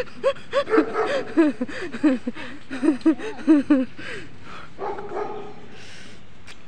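A dog yapping in a quick run of short, pitched barks, about four a second, for nearly four seconds, then one softer call about five seconds in.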